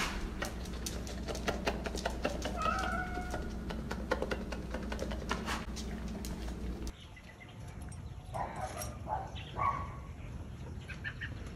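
A dog making a few short whining calls over a steady low hum and scattered clicks. The level drops suddenly about seven seconds in, and a few short animal calls follow.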